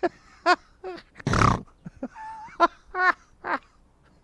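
A voice making about six short, clipped grunts and squeals, with one loud breathy blast about a second and a half in.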